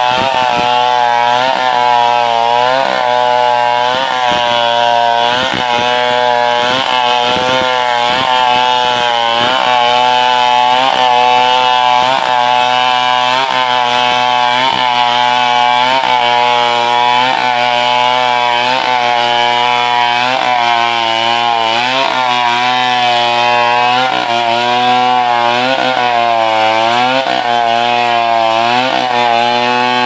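Large two-stroke chainsaw, a Stihl 070, cutting through a log under load, its engine pitch dipping and recovering every second or two as the chain bites into the wood.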